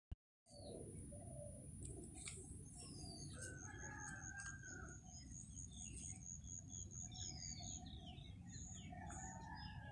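Several small birds chirping and calling, with short falling whistles and a rapid, high, pulsing trill held for several seconds in the middle. A faint low rumble runs underneath, and the sound drops out for a moment at the very start.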